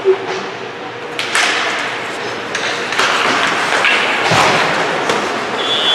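Youth ice hockey play in a rink: sticks clacking on the puck and ice with sharp knocks and skate scraping after the faceoff, then a referee's whistle blows near the end to stop play.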